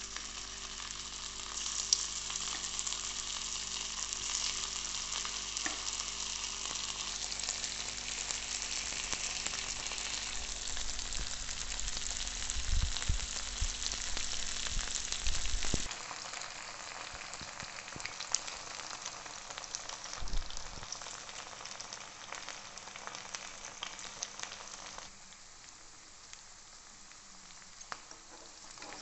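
Marinated chicken pieces sizzling as they shallow-fry in hot sunflower oil, a steady dense hiss. The sizzle drops quieter about sixteen seconds in. Near the end a metal spatula scrapes and stirs the pieces in the pan.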